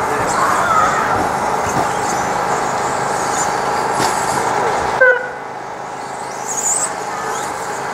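Radio-controlled stadium trucks running round the track: a steady mix of motor whine and tyre noise. About five seconds in the sound drops and a single short electronic beep sounds.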